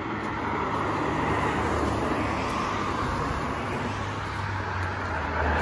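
Road traffic: cars driving past on a main road, a steady rush of tyre noise that swells over the first second or so and then holds.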